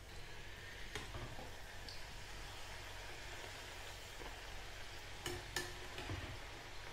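Pani puri puris deep-frying in hot oil in a kadhai, a steady soft sizzle as they puff up. A few light clicks of a metal slotted spoon against the pan, one about a second in and two close together near the end.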